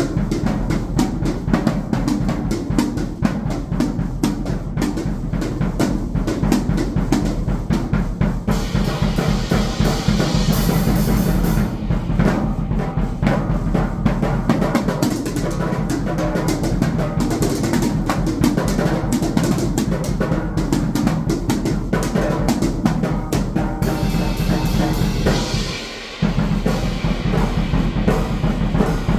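Drum kit played continuously with dense, rapid strikes on drums and cymbals. Cymbal wash swells in twice, and the playing breaks off briefly near the end before resuming.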